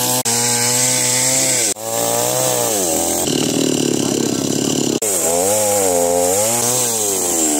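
Stihl two-stroke chainsaw running at high revs and cutting through a fallen tree trunk, its engine pitch sagging and rising as the chain bites into the wood.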